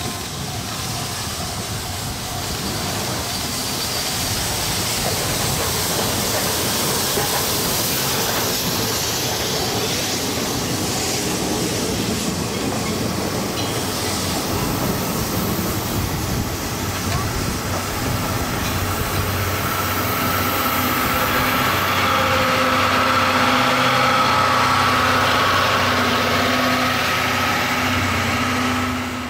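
A train running by on the rails, growing gradually louder, with a steady droning engine tone added in the last several seconds.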